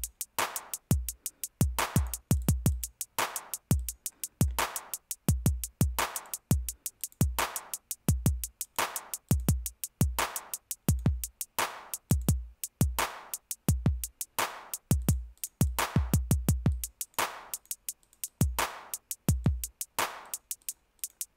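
A sampled drum-machine loop running in a web browser: hi-hat ticks, claps and bass-drum thuds repeat in a 16-step pattern. The bass-drum hits change as steps in the grid are clicked on and off.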